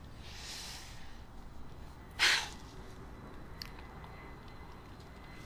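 A person breathing: a soft breath out, then a short, sharp breath out through the nose a little over two seconds in, with a faint click after it.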